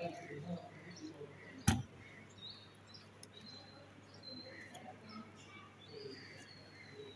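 Faint bird chirps: several short high whistles and one longer, slightly falling whistle. A single sharp click comes at about two seconds in.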